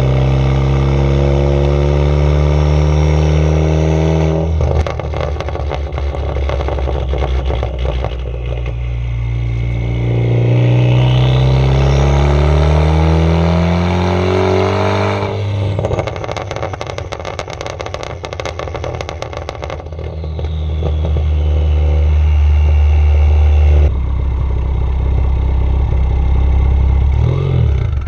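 Ford Focus ST mk3's turbocharged 2.0 L four-cylinder through a straight-piped exhaust with a catless downpipe, accelerating hard twice with rising pitch. Each time the throttle lifts, about five and fifteen seconds in, a rapid string of pops and crackles from the tuned overrun follows. In the last stretch it settles into a steady drone.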